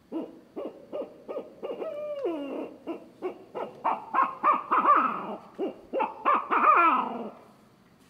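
Barred owl hooting imitated on a mouth-blown owl hooter call. A quick run of short hoots is broken by long falling notes, one about two seconds in and one near the end, after which the calling stops.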